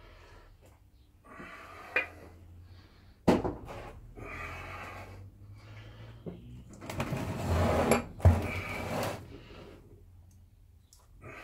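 Steel parts of a Holden M20 four-speed manual gearbox being handled on a workbench: metal-on-metal clinks and knocks, with sharp knocks about three seconds in and about eight seconds in, and a scraping stretch of metal sliding on metal just before the second.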